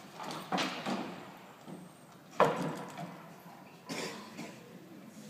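Knocks and clatters of a Rube Goldberg machine's parts as it runs through its steps: five or so sharp impacts, the loudest about two and a half seconds in, trailing off with a short ring.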